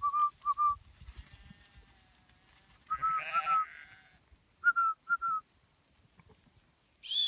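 A shepherd's whistled commands to a working sheepdog: short, steady notes, two at the start, a longer one about three seconds in and three quick ones near five seconds. A sheep bleats under the longer whistle.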